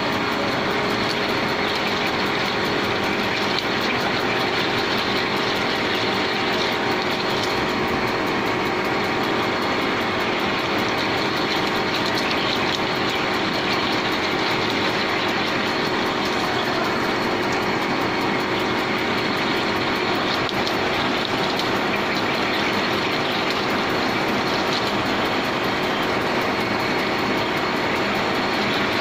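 Jinan Fast HZ500 CNC drilling machine with its spindle running and the drill cutting into a metal workpiece held in a chuck: a steady, even machining noise with a constant hum.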